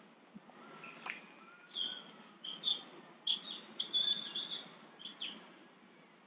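A string of short, high-pitched animal chirps and squeaks in quick clusters, thickest in the middle and stopping shortly before the end.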